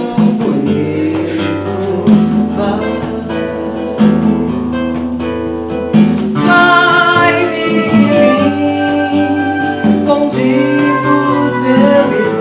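Acoustic guitar playing with singing, strong plucked chords falling about every two seconds and the melody growing fuller about halfway through.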